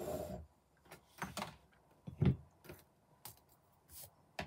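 Card and craft items being moved about on a work mat by hand: scattered rustles and light knocks, the loudest a low knock about two seconds in, and a sharp click near the end.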